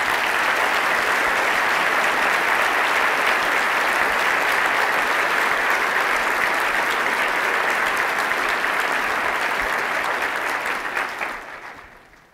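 Large audience applauding, steady and sustained, dying away near the end.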